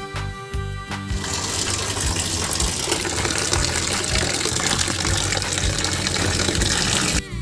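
Background music with a low beat, overlaid from about a second in by a steady rushing noise that lasts about six seconds and stops just before the end.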